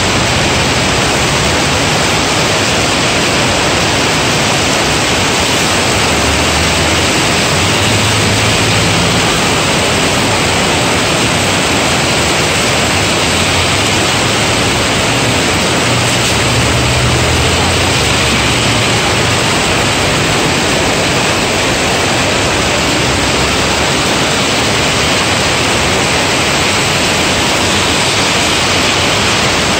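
Heavy rain pouring onto a paved road, a loud, steady hiss. Vehicles drive through the wet road twice, adding a low rumble a few seconds in and again around the middle.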